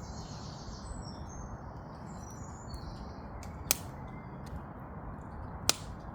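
Small birds chirping in the first second or so over a steady hiss, then two sharp pops about two seconds apart from the wood fire crackling in a twig stove.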